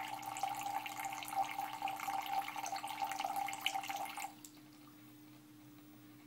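Small AC tabletop-fountain pump running on its priming cycle, pushing liquid through a copper pipe. The stream pours and splashes for about four seconds over a steady whine, then cuts off suddenly.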